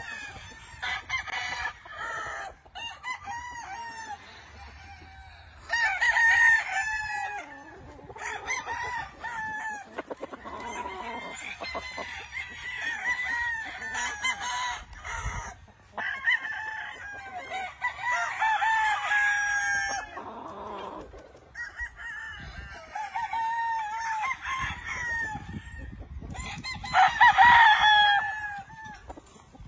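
Several gamefowl roosters crowing one after another and over one another, with clucking between the crows. The loudest crows come about six seconds in and again near the end.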